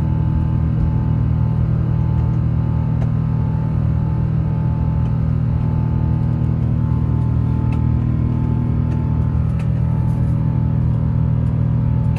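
Steady low drone of a jet airliner's cabin during the climb after takeoff, with music playing over it.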